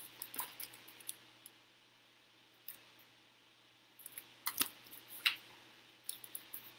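Faint handling sounds of a hardcover picture book: a few light clicks and paper rustles as it is held up and turned, a quiet pause, then more clicks and rustles about four seconds in as its pages are turned.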